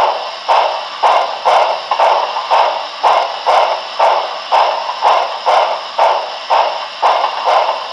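Steam-locomotive sound effects from the onboard sound system of a Broadway Limited Paragon4 Santa Fe 4000-class 2-8-2 model: even puffs about twice a second over a steady hiss.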